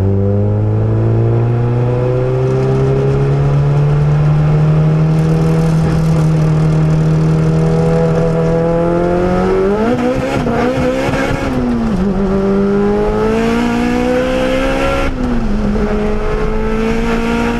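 Turbocharged Volkswagen engine accelerating hard, heard from inside the cabin. Its note climbs slowly for about ten seconds, then dips sharply in pitch about 12 and 15 seconds in and climbs again each time. The caption says this turbo only starts to spool at about 6000 rpm, a sign of turbo lag.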